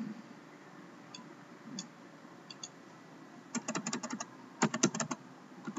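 Computer keyboard typing: a few scattered key presses, then two quick runs of keystrokes about three and a half seconds in, the second run the loudest.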